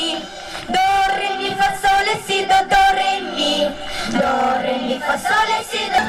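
A group of young girls singing together into microphones over recorded backing music played through PA loudspeakers.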